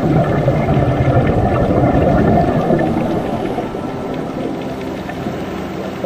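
Small sea waves breaking and washing in over rocks at the shoreline, a low rushing surge that builds over the first two seconds or so and then eases off.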